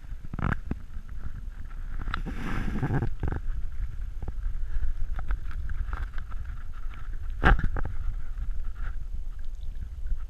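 Kayak paddling: the paddle swishing and splashing through the water, with sharp knocks, the loudest about three quarters of the way through, over a low wind rumble on the action camera's microphone.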